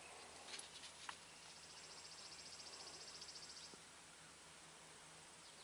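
Near silence: room tone, with a couple of soft clicks near the start and a faint, high, rapidly pulsing chirr for about two seconds in the middle.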